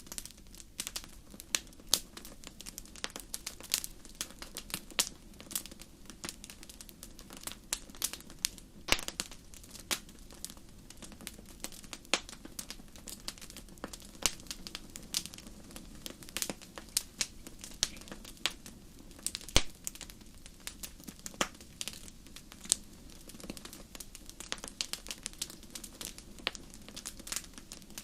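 Wood bonfire crackling, with frequent irregular sharp pops over a steady low rumble.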